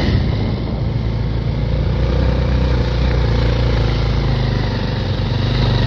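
Motorcycle engine running steadily while riding along, with a steady rushing noise over it.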